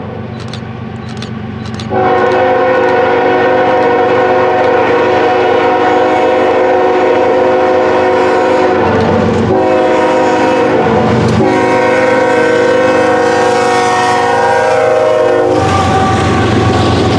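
Norfolk Southern freight diesel locomotive's multi-note air horn blowing for a road crossing: it starts about two seconds in, breaks off briefly twice, and stops about a second and a half before the end. After that comes the rumble of the passing locomotive and its wheels on the rails.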